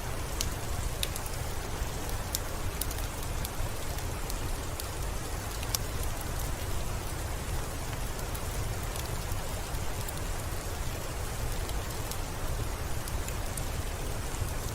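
Steady rain falling, an even hiss with a low rumble beneath and scattered sharp drop ticks on top.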